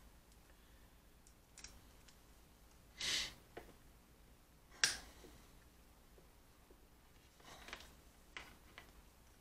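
Faint clicks of alligator-clip test leads being handled and clipped onto a small battery board, a few separate clicks with a sharper one about five seconds in, and a brief soft rustle around three seconds in.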